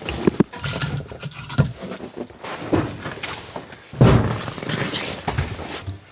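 A run of irregular knocks and thuds of objects being handled, with one heavier thud about four seconds in.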